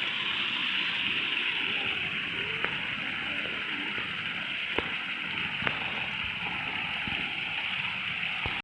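Water running steadily in a mountain stream fed by a spring flowing out of the rock, an even rushing hiss, with a few faint clicks.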